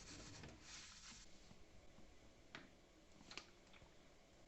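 Near silence with faint handling noise: a soft rustle during the first second, then two light clicks.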